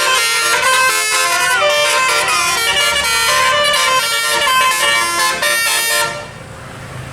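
Bus telolet horns, the melodic multi-tone horns blown through trumpet-shaped horns, playing a loud, fast tune in several tones at once. They stop abruptly about six seconds in, after which voices are heard faintly.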